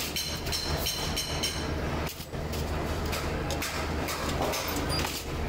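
Pedestal spot welder welding fittings onto a steel motorcycle mudguard: a steady low hum with many sharp crackling clicks from the electrodes.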